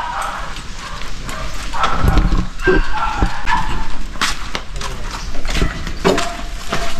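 A few short animal calls, several in a row, mixed with some sharp knocks.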